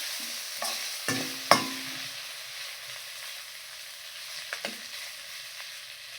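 Onion, broccoli, garlic and ginger sautéing in hot oil, with a steady sizzle. They are being stirred, and the utensil knocks against the pan a few times, loudest about a second and a half in.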